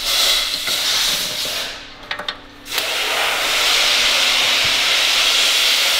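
A steady hiss of a pressurised jet, such as a torch flame or an aerosol spray, aimed at the wheel-bearing bolts. It runs for about two seconds, breaks off for about a second, then comes back and holds steady.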